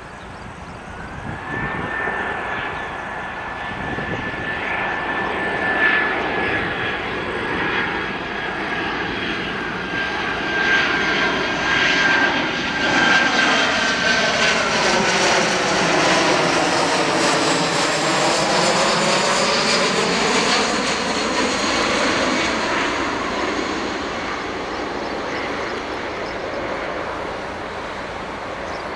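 Airbus A319 jet engines at approach power as the airliner flies in low and passes overhead: a steady high fan whine over a growing rumble, the whine sliding slightly lower. The rumble then peaks with a sweeping, hollow whoosh as the plane goes over and fades a little as it moves away.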